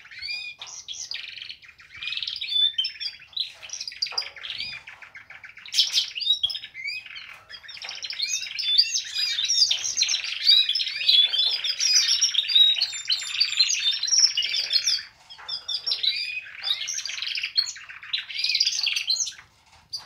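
Domestic canaries singing: long, fast warbling runs and trills, broken by a short pause about fifteen seconds in. Singing like this is the mark of male canaries, and the owner takes it as showing that all her birds are males.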